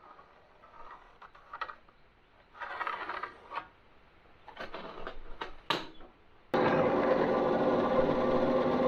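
Scattered light clicks and knocks for several seconds. About six and a half seconds in, a loud, steady mechanical hum with several held tones cuts in suddenly.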